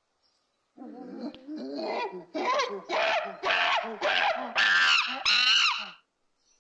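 A monkey calling: a run of about eight hooting calls that grow louder and shriller, breaking off about a second before the end.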